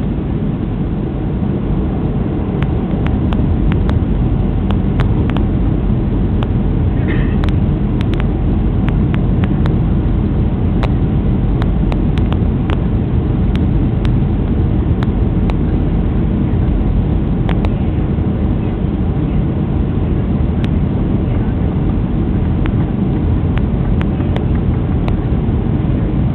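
Steady jet engine and airflow noise of a Boeing 737 heard inside the cabin near the tail, on approach with flaps extended. Faint scattered clicks sit over the noise.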